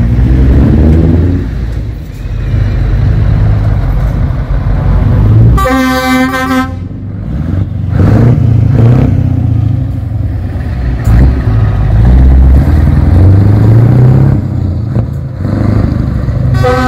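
Scania V8 diesel truck engine running with a deep rumble, revving up several times as the tractor unit pulls away under hard throttle. A truck horn blasts for about a second around six seconds in, and again near the end.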